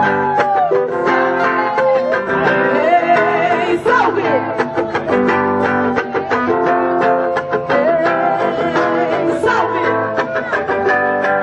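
Music led by plucked and strummed guitar playing a run of chords, with a gliding melody line above.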